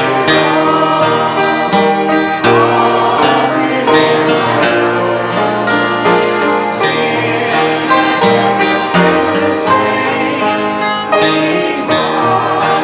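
Congregation singing a hymn with instrumental accompaniment.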